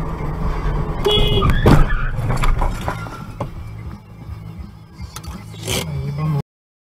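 Dashcam audio of a car driving, with steady engine and road noise inside the cabin. A short beep about a second in is followed by a sharp, loud knock and a few clicks. The sound goes quieter, has one more sharp noise, then cuts off abruptly near the end.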